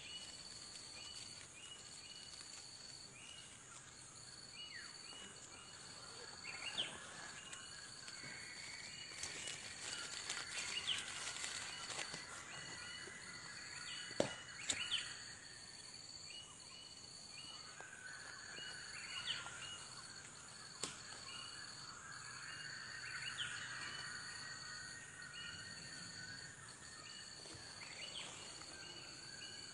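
Forest ambience: a steady high-pitched insect drone with birds chirping and warbling at intervals, and a few sharp clicks about halfway through.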